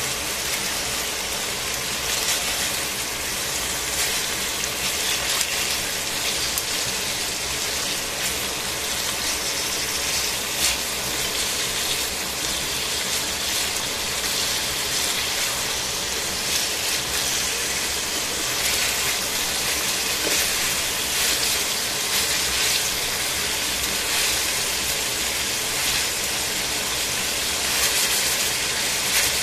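Chicken pieces sizzling in oil in a stainless steel frying pan, a steady hiss, with occasional light clicks and scrapes as tongs turn the meat.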